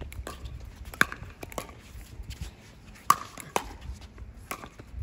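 Pickleball rally: a paddle striking a plastic pickleball again and again, sharp pops every half second to second, with the loudest hits about a second in and about three seconds in.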